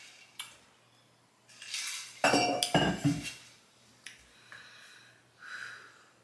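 A stainless steel drinking tumbler with a straw lid being handled, with clinks and knocks. A cluster of loud knocks a little over two seconds in rings briefly, as the tumbler is set down on a hard surface.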